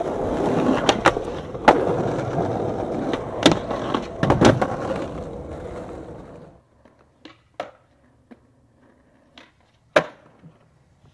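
Skateboard wheels rolling on concrete, with several sharp clacks of the board against the ground. About six and a half seconds in, the rolling stops suddenly, leaving only a few scattered taps and clacks of the board.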